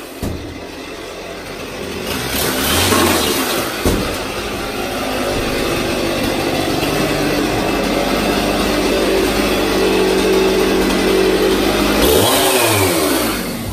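Gas chainsaw running and cutting into a plywood wall. Near the end its pitch falls away as the engine slows down.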